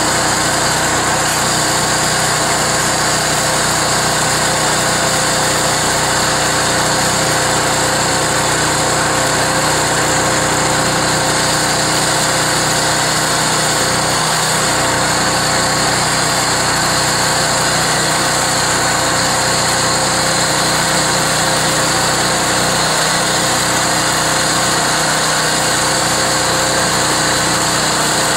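The gasoline engine of a Harbor Freight band sawmill running steadily, with no change in speed.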